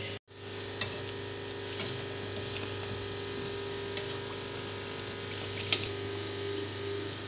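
Chickpea-flour-battered naan deep-frying in hot oil with a steady sizzle over a low hum, with a couple of light clicks from the metal tongs turning it.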